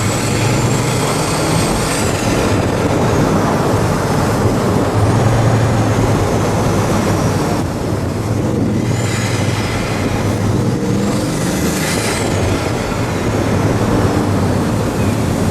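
Vehicle engine and street traffic noise, with a steady low hum and a few brief high whistles that rise and fall.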